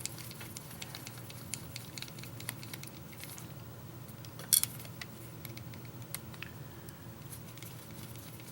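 Small metallic clicks and taps from handling a picked lock cylinder and its tools, scattered irregularly, with one sharper, louder click about halfway through.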